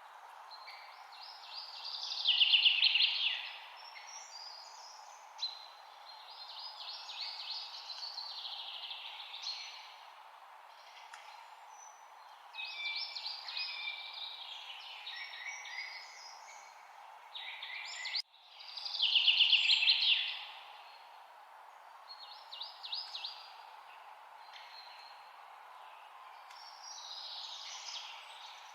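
Songbirds singing in the forest: repeated phrases of rapid, high trilled notes, each lasting a second or two with short pauses between them, over a steady faint background hiss.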